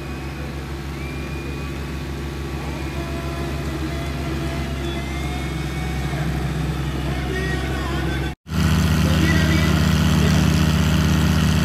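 Two diesel tractors coupled back to back in a tug-of-war, their engines running hard and steady under full load and slowly growing louder. After a sudden cut about eight seconds in, a second pair of tractors runs louder under the same strain.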